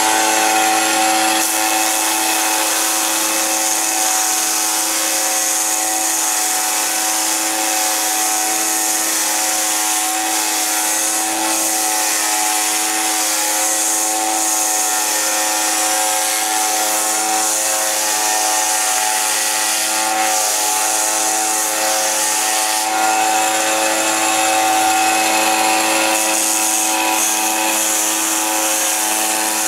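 Delta belt-and-disc bench sander running steadily, its motor hum under a constant high hiss as the narrow sanding belt takes foam off the edge of a foam sword blade.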